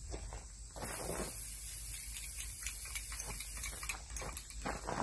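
Aerosol spray can hissing in one long spray of about three seconds, starting about a second in and cutting off sharply, as a coating is sprayed onto the end of a log post.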